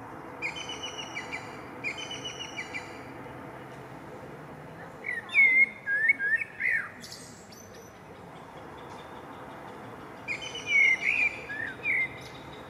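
Common chaffinch singing: short runs of repeated high notes, then twice a louder descending phrase ending in a flourish, about five seconds apart. A steady low rumble runs underneath.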